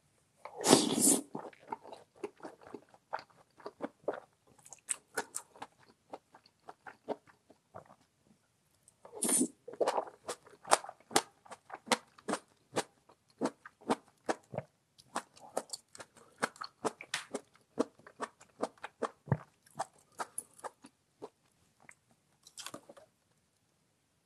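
A person eating close to the microphone: steady chewing with many sharp crunchy bites, and three louder noisy bursts, about a second in, around nine seconds and near the end.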